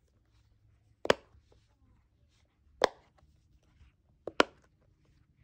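Silicone bubbles of a dimple fidget toy being pressed with a finger, giving three sharp pops about a second and a half apart, the last a quick double pop.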